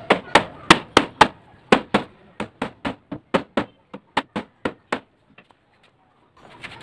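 Mallet tapping a wooden chair frame at about three to four blows a second, seating the top rail onto the legs' joints. The blows grow lighter and stop about five seconds in.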